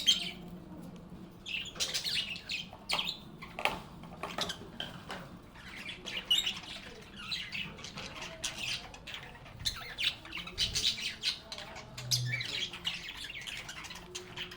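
Lovebirds (Agapornis) chattering: many short, overlapping chirps and squawks with sharp clicks mixed in, going on without a break.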